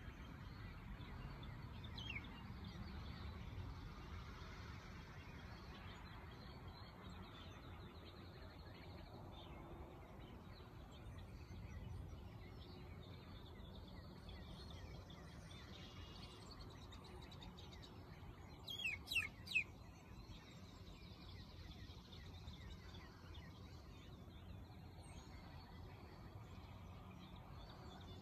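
Faint outdoor background with occasional high peeps from month-old poultry: the chick and ducklings in the pen. The loudest is a quick run of three or four short, falling peeps about two-thirds of the way through.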